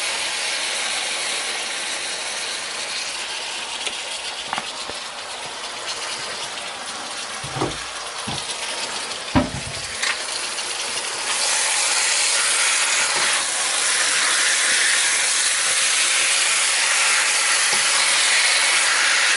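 Diced pork tenderloin frying in oil in a skillet: a steady sizzle that grows louder about two-thirds of the way through. A few short knocks of a spatula against the pan come near the middle.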